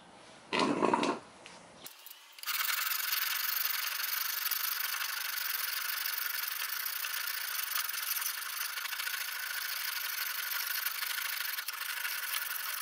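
A hand file is drawn over the steel edge of a vintage Mastercraft axe head, making a continuous dry rasping from about two seconds in. Before that, about half a second in, there is a brief loud noise.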